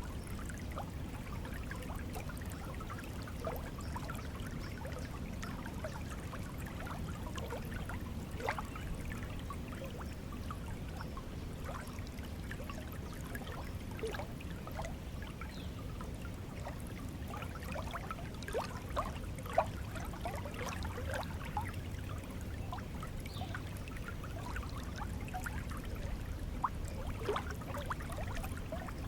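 Flowing stream water running and trickling steadily, with a constant low rush and many small gurgles and splashes over it.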